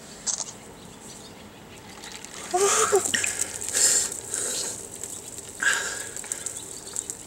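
Bucket of ice water dumped over a person, splashing in a couple of hissy bursts, with a short cry about two and a half seconds in.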